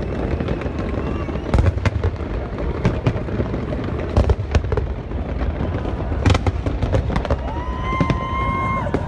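Fireworks display: sharp bangs of bursting shells at irregular intervals over a continuous low rumble. Near the end two whistles rise and are held for about a second each.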